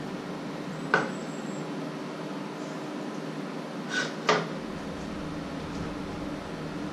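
Kitchen utensils knocking against cookware: three sharp clinks, the first about a second in with a short high ring after it, the other two close together about four seconds in, over a steady low hum.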